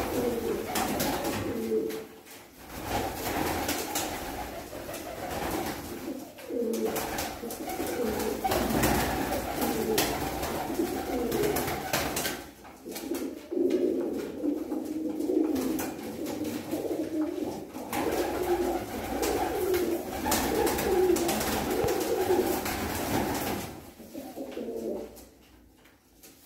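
Several domestic pigeons cooing in a small enclosed loft, their calls overlapping almost without break, with scattered clicks. The cooing dies away a couple of seconds before the end.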